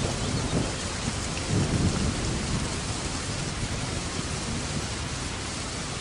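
Thunderstorm: steady rain hiss with low rolling thunder that swells about one and a half seconds in, then settles into rain alone.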